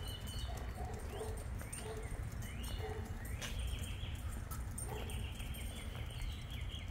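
Birds calling: short rising chirps in the first half, then longer trilling calls in the second half, over a steady low rumble.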